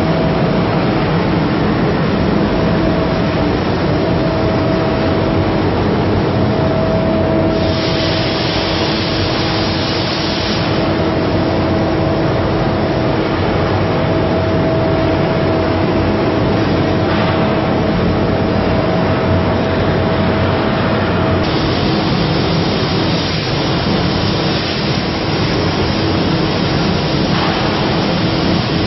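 Gantry CNC plasma cutting machine at work: a loud steady noise with a constant hum. A harsher hiss comes in for about three seconds near a quarter of the way through, and again for the last quarter, when the plasma arc is cutting.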